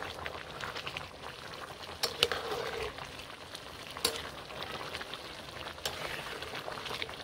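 Pulao rice and water bubbling in a karahi as it comes to the boil, stirred with a spoon that knocks against the pan a few times with sharp clicks.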